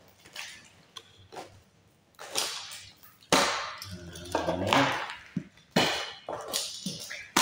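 Plastic-wrapped cardboard parcel being cut and torn open with a box cutter: a run of sharp rips and crackles of cardboard and plastic wrap, louder and more frequent from about two seconds in.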